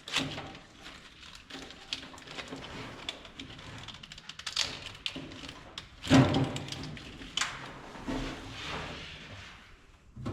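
Workshop handling noises as parts and wiring are moved about: scattered light taps and rustles, with a louder thump about six seconds in.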